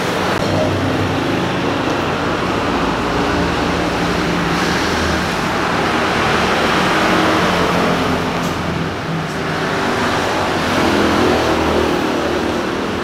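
Continuous road traffic noise: vehicle engines running and passing, the level swelling and easing every few seconds.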